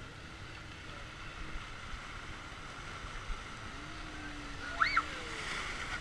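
Rapids of a river raft ride rushing and churning around the raft in a steady watery rush. About five seconds in, a short high squeal rises and falls over it.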